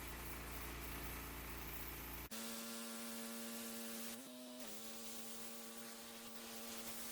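Pull-started gas pressure washer running steadily. About two seconds in the sound changes abruptly to a steadier, higher-pitched hum. A couple of seconds later that hum briefly rises in pitch and settles back.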